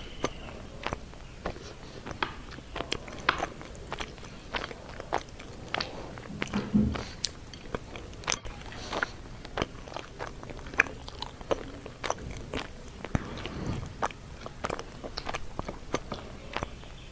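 A person eating close to the microphone: chewing with wet mouth clicks and smacks, several a second and irregular, with a short low sound about seven seconds in.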